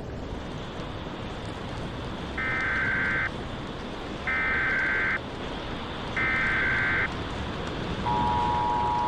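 Emergency Alert System alert: three short screeching data bursts of the SAME header, each about a second long with a second's gap, then about 8 seconds in the steady two-tone attention signal begins. Steady rain plays underneath.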